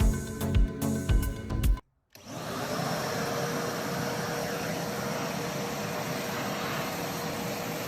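Kärcher WD 2.200 wet-and-dry vacuum cleaner switching on about two seconds in and then running steadily, a constant whooshing motor-and-airflow noise with a faint steady hum tone. Before it, background music with a beat cuts off abruptly.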